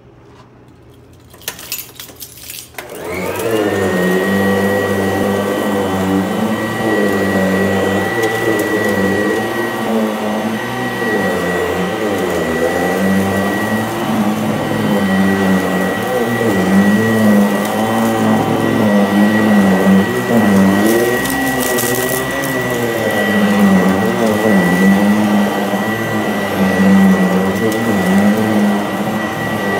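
Sanitaire SC899 commercial upright vacuum cleaner, a few clicks and then switched on about three seconds in; the motor comes up to speed and runs steadily with a high whine. As it is pushed back and forth across an entrance mat, salt and grit crunch and rattle up into it.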